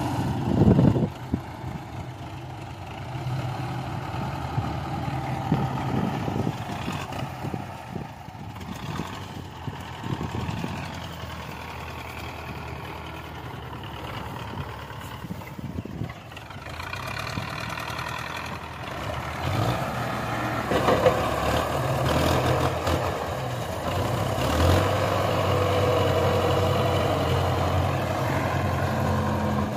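Belarus tractor's diesel engine running and revving up and down as it works its front hydraulic loader, scooping and lifting a bucket of straw chaff. It runs louder and steadier over the last several seconds.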